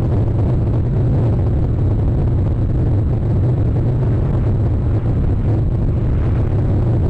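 A steady low rumbling noise that holds at the same loudness throughout, with no separate calls or knocks standing out.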